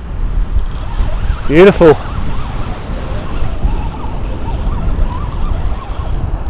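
Steady low rumble of wind on the microphone, over the wash of the sea.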